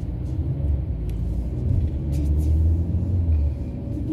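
Car driving along, heard from inside the cabin: a steady low rumble of road and engine noise that swells slightly partway through.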